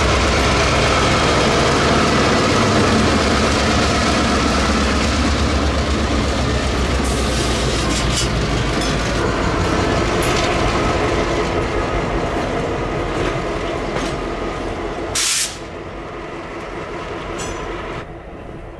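Three EMD GP38-2 diesel locomotives with non-turbocharged 16-cylinder 645 engines rolling slowly past close by, the engines running with a deep, rhythmic beat that fades as the units move away, over the clatter of wheels on rail. A short, very loud burst of noise comes about three-quarters of the way through.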